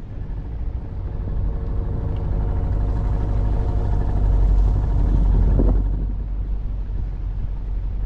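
Boat motor running under a heavy low wind rumble on the microphone; its engine note grows louder over a few seconds, then drops away suddenly about six seconds in.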